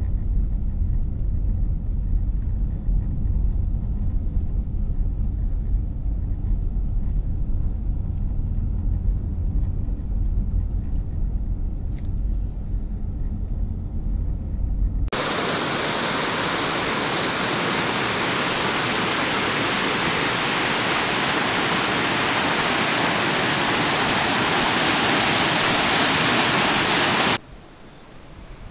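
Low, gusty rumble like wind on the microphone. About halfway through it switches abruptly to a loud, steady hiss that slowly grows louder, then cuts off suddenly near the end.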